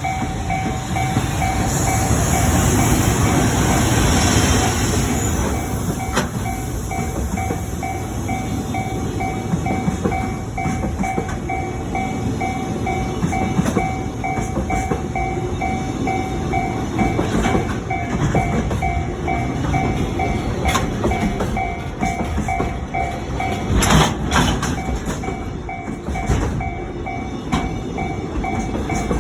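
Freight train of an EF210 electric locomotive and Koki container wagons rolling over a level crossing, wheels rumbling steadily with sharp clacks over rail joints. A railway crossing warning bell rings in even repeated pulses throughout.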